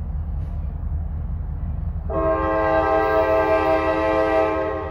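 Air horn of the lead Norfolk Southern diesel locomotive sounding one long blast, starting about two seconds in and held for nearly three seconds. It plays over a steady low rumble from the approaching light engine move of an EMD GP60 and an SD60E.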